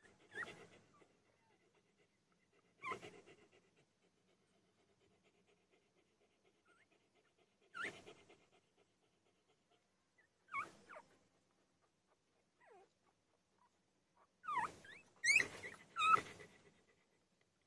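Newborn puppy whimpering in short, squeaky cries a few seconds apart, then several in quick succession near the end.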